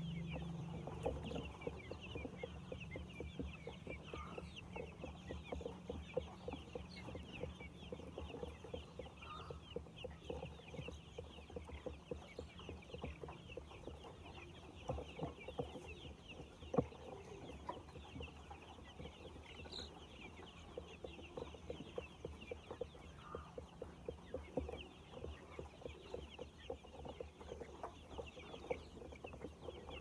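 A large flock of young chickens peeping and clucking all at once, a dense, unbroken chatter of short high chirps. One sharp knock stands out a little past the middle.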